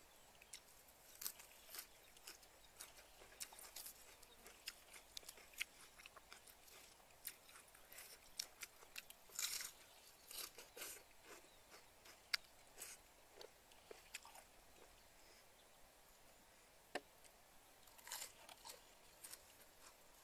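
Close-up eating sounds: a person chewing and biting fresh herb sprigs and food from a plate, a scatter of short, crisp clicks and crunches, busiest in the first dozen seconds.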